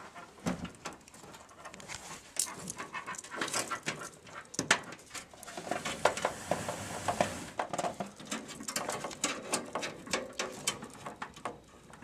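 Hands and a screwdriver working a hard drive into a computer case's metal drive bay and fastening it with screws: an irregular run of small clicks, taps and scrapes.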